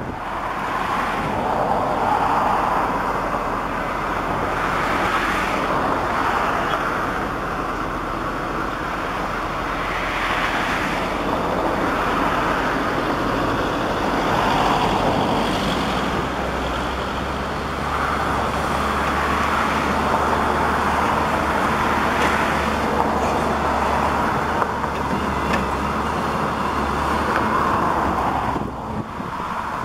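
Hyundai crawler excavator's diesel engine running under load, its sound swelling and easing every few seconds as the hydraulics move the boom and bucket.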